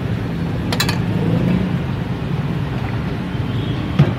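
Steady low rumble of street traffic and engine noise, with a short sharp click about a second in and a thump near the end.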